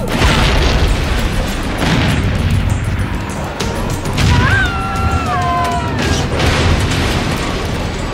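Action-movie soundtrack: dramatic music over a dense rumble, with heavy booms about every two seconds and a falling wail near the middle.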